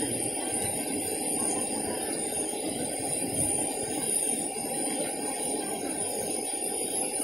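Water boiling in a wok over a wood fire, giving a steady rushing bubble, with a steady high-pitched ringing hiss above it.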